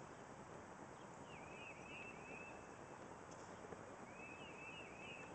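A songbird singing a short phrase of four or five quick repeated whistled notes, twice, about three seconds apart, over a faint steady background hiss.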